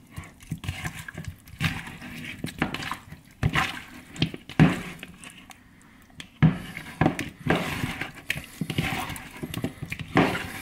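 Raw chicken wings being tossed and squeezed by hand in lime juice in a plastic bowl: irregular wet squishing and sloshing, quieter for a moment about five seconds in.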